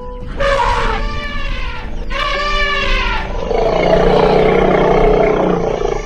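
Elephant calls: two loud trumpeting calls, each rising and then falling in pitch, followed by a longer, rough roaring call.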